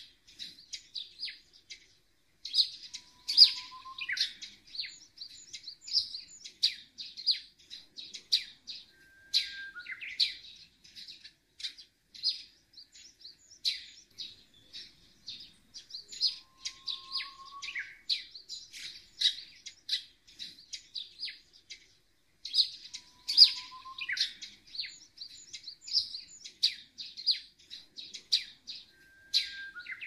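Small birds chirping busily and continuously in short, high chirps. Now and then a lower, slightly rising whistle sounds. The same sequence of calls recurs about every 20 seconds, like a looped recording.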